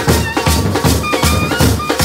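Street brass band playing a Bhojpuri pop tune: clarinet and trumpets carry the melody over a steady beat of bass drum and snare drum, about three beats a second.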